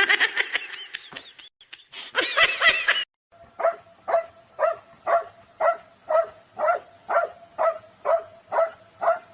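A dog barking in an even rhythm, about two barks a second, after a few seconds of high squeaky sounds from another source.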